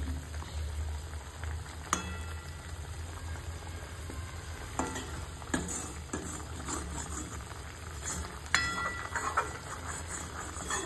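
A metal ladle stirring a pot of simmering mutton curry, scraping through the gravy and clinking against the pot a few times. The loudest, ringing clinks come about two seconds in and again around five and eight and a half seconds in, over a steady low hum.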